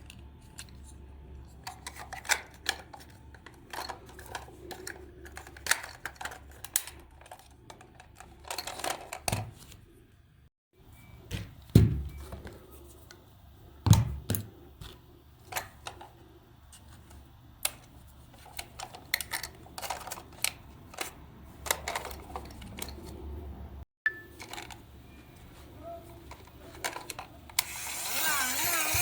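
Irregular clicks, taps and knocks of small plastic toy parts and tools being handled, over a low steady hum, with a couple of louder knocks midway. Near the end a louder wavering electronic sound starts.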